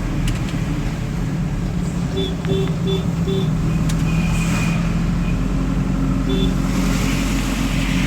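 Car engine and road noise, heard from inside the moving vehicle as a steady hum. Four short beeps come quickly one after another a little after two seconds in, and another single beep near the end.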